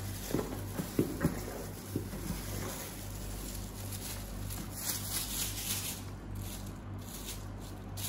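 A plastic-gloved hand patting and smoothing damp, coconut-milk-soaked fish-bait pellets flat in a plastic tub: a few soft pats and rustles in the first two seconds, then a steady low hum with the hand still.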